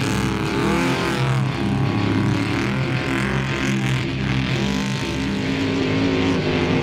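Off-road race truck's engine revving as the truck slides through deep sand, its pitch rising and falling several times.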